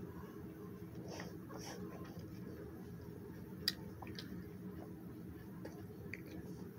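Steady low room hum with a few faint clicks and rustles from fingers handling a small object, and one sharper click a little past halfway.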